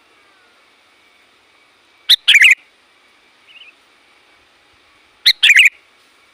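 Sooty-headed bulbul (kutilang) calling: two loud, quick bubbling phrases about three seconds apart, each a short note followed by a rapid run of notes, with a faint brief call in between.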